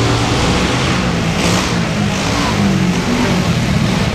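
Several small mini-bike engines revving as they race, the pitch wavering up and down and climbing in the middle, echoing inside a large covered arena.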